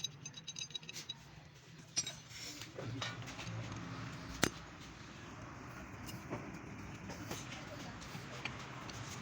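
Light metallic clinks and taps of tools and engine parts being handled during motorcycle engine assembly, with a sharp click about two seconds in and a louder one a little after four seconds.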